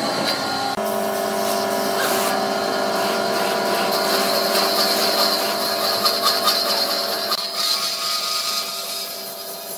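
Band saw running and ripping a slab off the side of a log, a steady motor hum under the hiss of the blade in the wood. The cutting noise eases off in the last couple of seconds.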